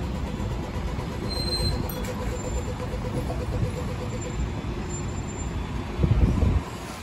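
Busy city street traffic noise, with buses and other vehicles running. There is a steady low rumble and a brief louder low surge about six seconds in.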